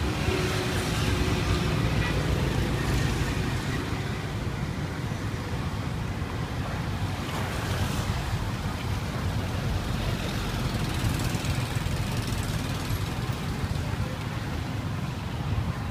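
Steady street ambience: a continuous low rumble of passing traffic.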